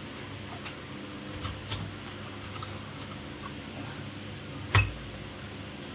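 Light clicks and taps of a cable connector being handled on a workbench, with one louder knock about five seconds in, over a steady low hum.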